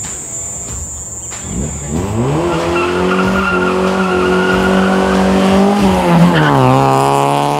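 1990 Honda Civic EF sedan driving up and passing close by: its engine note climbs as it accelerates about two seconds in, holds a steady high note, then drops in pitch as the car goes past.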